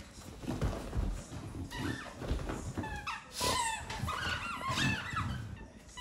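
English bulldog snuffling and grunting in short bursts as it noses and mouths a plush toy, with a run of short, high squeaky sounds through the second half.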